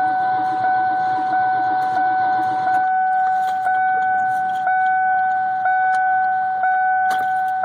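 A car's electronic warning tone sounds steadily, with a small tick about once a second. A lower drone runs underneath and stops about three seconds in.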